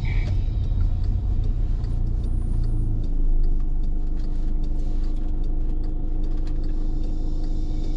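Steady low rumble of an airliner heard from the aircraft, with a steady hum joining about three seconds in and faint scattered ticks.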